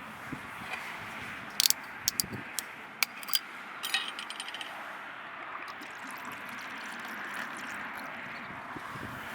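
A handful of sharp clicks and clinks from small hard, metallic-sounding objects, bunched together from about one and a half to four seconds in, some ringing briefly, over a steady background hiss.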